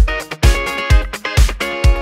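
Electronic dance music with a steady kick drum on every beat, about two beats a second, under sustained synth and plucked chords.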